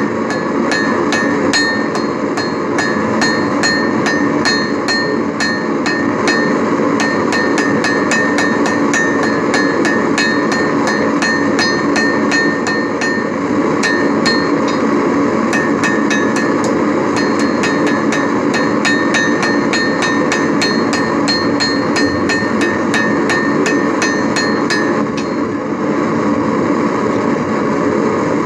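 Hand hammer striking hot steel on an anvil to straighten it, about two to three blows a second, each with a short metallic ring. The hammering stops a few seconds before the end, over a steady background noise throughout.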